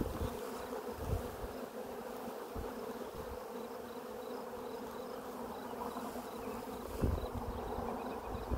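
Honeybees buzzing steadily: the hum of a mass of worker bees on a brood frame lifted out of an open hive. A low bump sounds about seven seconds in.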